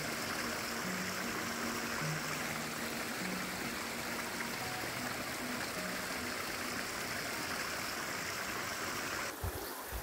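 Flowing stream running steadily under soft background music of long, held low notes. The water sound cuts off abruptly near the end.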